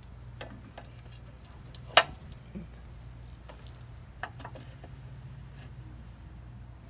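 Scattered metallic clicks and clinks, with one sharp loud clack about two seconds in, as a coil spring is worked into its seat over a lift spacer on the suspension's lower arm. A steady low hum runs underneath.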